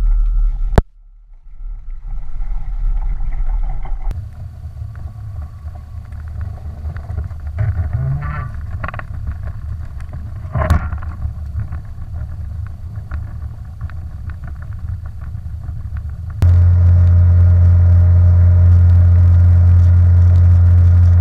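A motor running, heard in a few short clips that are cut together with sudden changes, and a sharp click about two-thirds of the way through. Near the end it settles into a loud, steady, low drone at a constant pitch.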